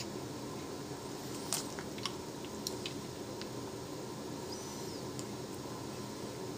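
Newborn baby sucking on his fingers, with a few soft smacking clicks over a steady room hum.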